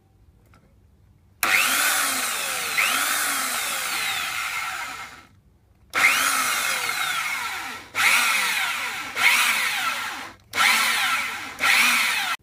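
Electric drill in a drill stand boring 6 mm holes into a car water pump's metal pulley mounting. It starts about a second and a half in with one long run of about four seconds, then drills in five shorter runs with brief pauses between them.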